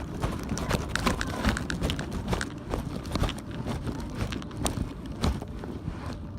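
Irregular footsteps and small knocks, several a second, over a steady low rumble.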